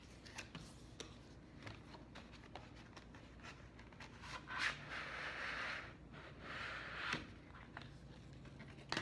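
Cardboard packaging of a Razer mouse pad being handled and opened: light taps and clicks, then two scraping slides about halfway through as the box flap is pulled open and the packaging is slid apart.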